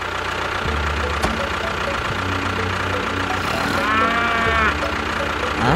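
A cow mooing once, about four seconds in, over a steady hiss and a low pulsing hum.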